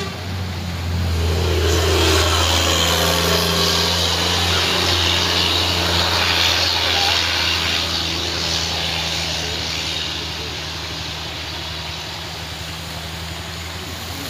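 A diesel engine running steadily at a low, even pitch, with road traffic hissing past on a wet road. The traffic noise swells about two seconds in and fades away over the last few seconds.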